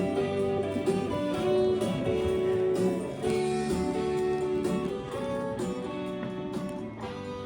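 Instrumental music, a run of held and shifting pitched notes, getting a little quieter toward the end.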